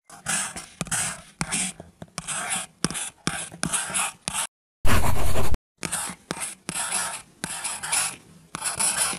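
Brush bristles swishing and scratching in quick short strokes, roughly two or three a second. About halfway through comes a brief pause, then one louder, longer rub.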